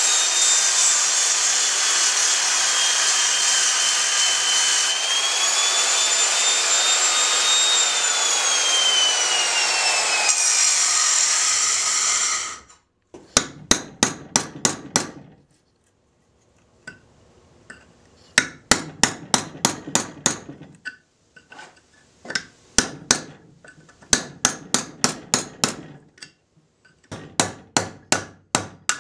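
Angle grinder running under load, its whine sinking and rising in pitch as it grinds down the seized steel inner bushing sleeve on a 1989 Isuzu Trooper upper control arm shaft. It stops about 13 seconds in. Then comes metal-on-metal hammering on a chisel held against the thinned sleeve, in bursts of several quick strikes.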